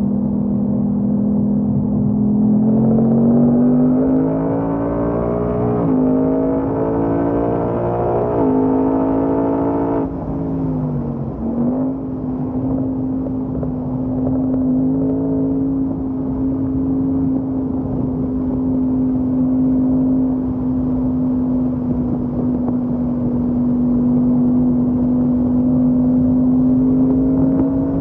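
Ford Mustang Mach 1's 5.0-litre V8 driving hard around a track, heard from inside the cabin. The engine note climbs for the first ten seconds with a couple of short dips, falls away briefly around the tenth second, then holds a steady note that rises slightly near the end.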